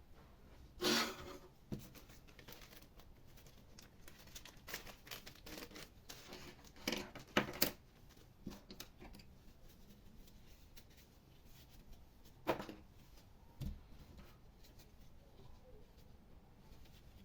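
Hands working on an opened laptop: scattered short scrapes, rustles and clicks a few seconds apart, with a denser cluster about halfway through.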